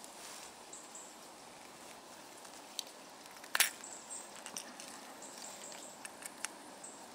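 Sharp plastic clicks and snaps as the interchangeable body sections of a Westin Mike the Pike swimbait lure are worked apart and fitted together, over a steady background hiss. The loudest snap comes about three and a half seconds in, with a few lighter clicks near the end.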